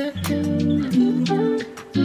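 Background music: a guitar-led track with held notes and regular percussive hits.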